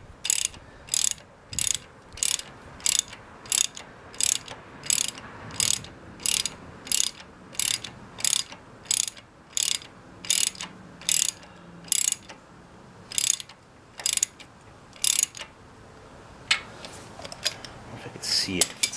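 Socket wrench with a 22 mm deep-well socket ratcheting as it runs the new oil pressure check valve adapter into a Harley-Davidson Sportster 1200 engine before torquing. Each back-swing gives a short burst of pawl clicks, about three every two seconds, slowing and stopping about three-quarters of the way through, then a few light clicks.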